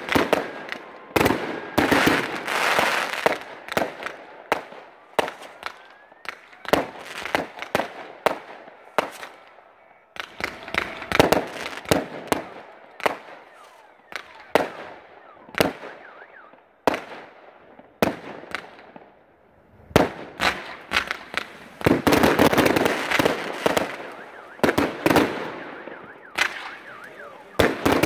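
Aerial fireworks bursting in quick succession: many sharp bangs, several a second at times, with dense stretches of crackling about two seconds in and again after about twenty seconds.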